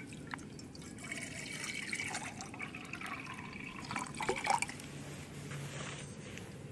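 Water pouring from a soft plastic water bottle into a Jetboil cook cup, a steady trickle filling the cup for a few seconds and stopping with a brief gurgle about four and a half seconds in.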